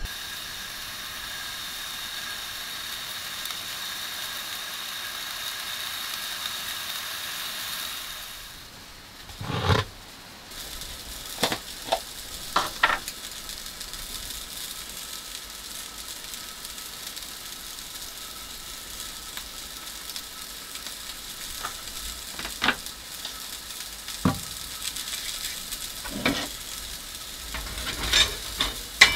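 Food sizzling in a pan on a propane camp stove, a steady hiss, with short clinks and knocks of utensils and containers every few seconds after the first third.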